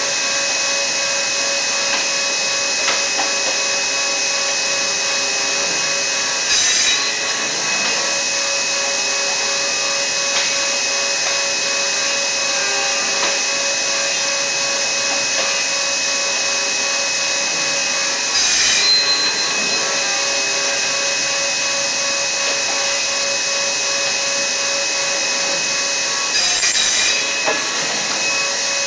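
Accu-Systems 2S CNC panel saw running steadily with its dust extraction: a constant machine noise with a few steady tones. Three short, louder bursts break in, the first about seven seconds in, then about twelve seconds later and eight seconds after that.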